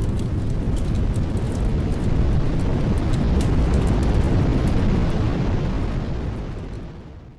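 A dense, low rumbling noise with faint crackles follows the last hit of a dance-pop track. It fades out to silence near the end.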